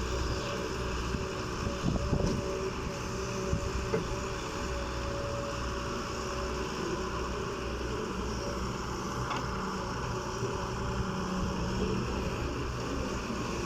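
Excavator's diesel engine and hydraulics working steadily, with a few short knocks about two, four and nine seconds in.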